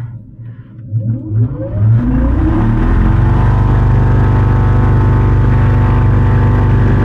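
Electric motor and propeller of a Pipistrel Taurus electric self-launching glider spinning up as power is added, a rising whine over about two seconds, then running at a steady hum.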